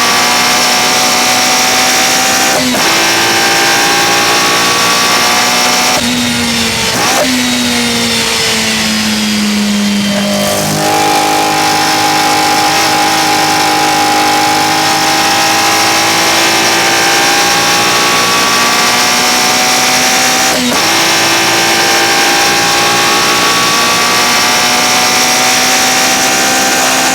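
Toyota 4A-GE 16-valve inline-four breathing through individual throttle bodies, pulling hard with the revs climbing and a quick drop in pitch at each upshift, about three seconds in and again near the end. Between about six and ten seconds in the revs fall away as the car slows, with a couple of steps down, then it accelerates again.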